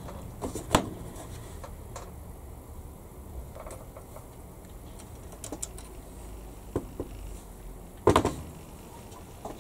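Small plastic parts being worked off a model-kit sprue with a hobby knife and sprue cutters: scattered light clicks and taps of plastic and tools, with a sharper snap near the end.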